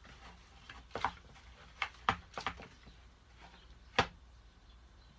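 A spoon knocking and clacking against a mixing bowl while stirring a cornstarch-and-lotion dough: a handful of short, scattered knocks, the sharpest about four seconds in.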